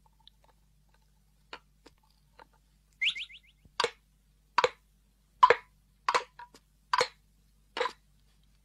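Cartoon sound effect of a bottle gourd hopping down stone steps on its own: a few faint taps, a short high rising tone about three seconds in, then sharp hollow knocks about every 0.8 s, each followed by a smaller tap. It is the sound that was first taken for a person's footsteps.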